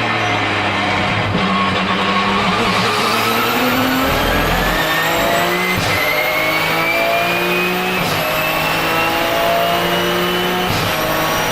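Porsche 997 GT2 RSR's twin-turbo 3.9-litre flat-six slowing for the first few seconds, then accelerating hard with a high turbo whistle rising with the revs. The pitch drops sharply three times at quick upshifts of the sequential gearbox, and the whistle breaks with each shift.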